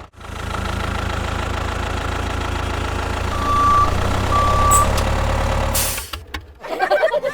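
A vehicle engine running steadily, with two short beeps at one pitch a little past the middle, like a reversing alarm. The engine cuts off about six seconds in.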